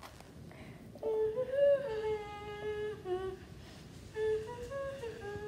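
A girl humming a simple tune in held, steady notes, in two phrases: the first starting about a second in, the second about four seconds in.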